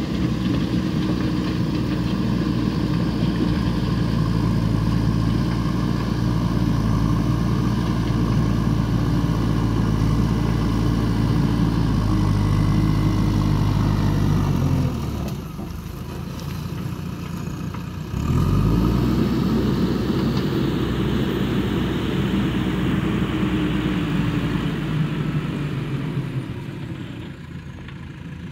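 JCB backhoe loader's diesel engine running at high revs while working its front loader bucket. About halfway through the revs fall away for a few seconds, then climb again, and they ease off near the end.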